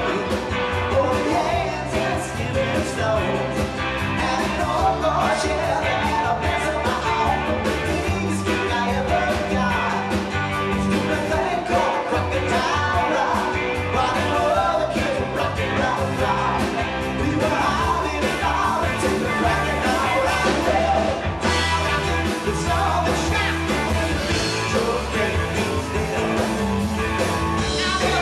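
Live rock band playing an upbeat rock-and-roll song on electric guitars, keyboard and drum kit, with a lead singer singing over it.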